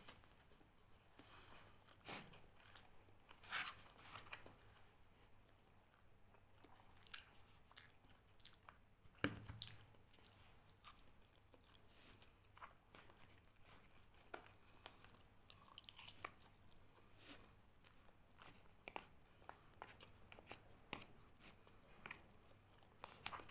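A person eating close to the microphone: faint chewing and biting with scattered small clicks and crunches, and one louder knock about nine seconds in.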